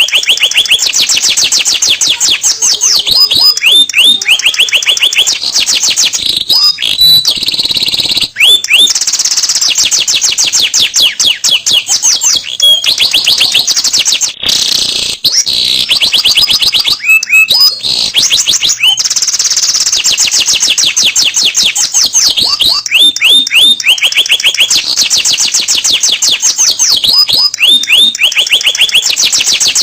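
Domestic canary singing a long, unbroken song of fast trills, rapid runs of repeated high notes that switch from one trill to the next every few seconds.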